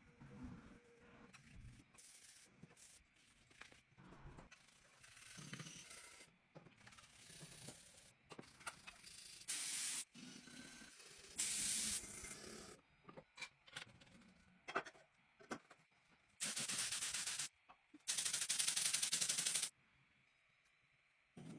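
Workshop handling noises, scraping and rubbing on parts, broken by four loud bursts of hissing, each about one to two seconds long, in the second half.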